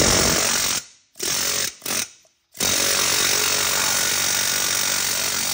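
Pneumatic air hammer with a pointed chisel bit rapidly hammering on a rusted, seized sway bar link. A run of blows stops about a second in, then come two short bursts, then a long steady run from about halfway through.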